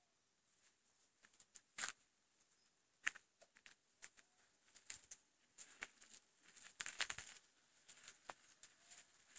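Near silence: faint outdoor quiet with scattered soft clicks and rustles, a few louder ones about two, three and seven seconds in.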